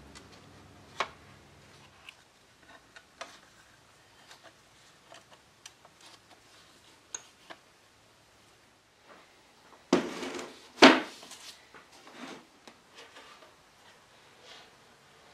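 A few light clicks and taps as pieces of old mirror glass are handled in a wooden frame, then two loud knocks with some clatter about ten and eleven seconds in as a long wooden box is handled on the workbench.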